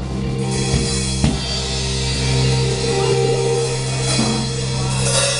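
Live rock band: electric guitar and bass notes held ringing over a drum kit, with a couple of drum hits in the first second or so and a cymbal near the end.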